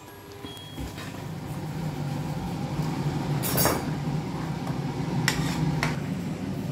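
A steel ladle stirring thick gravy in a steel kadai, scraping and clinking against the pan a few times, over a steady low rumble that grows louder.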